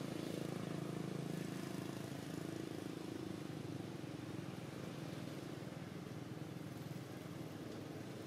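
Steady engine drone, easing off slowly toward the end.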